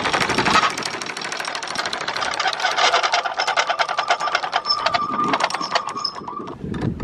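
Anchor windlass paying out anchor chain, the links clicking rapidly over the gypsy, about ten a second, over a steady whine. It stops about six and a half seconds in.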